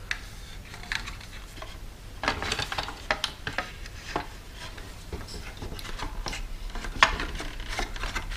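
Hard plastic parts of a toy cash register clicking and knocking as its drawer tray is handled and fitted back into the housing, with one sharper click about seven seconds in.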